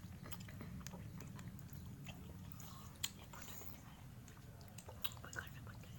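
Faint mouth sounds of eating ice cream: scattered smacks and clicks of chewing and biting, over a steady low hum.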